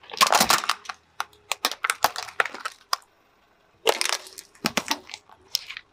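A car tyre crushing a hollow plastic toy duck: a dense run of cracks and crunches, then scattered snaps. Just under four seconds in, a drink can is crushed under the tyre with another burst of crunching, followed by more sharp cracks.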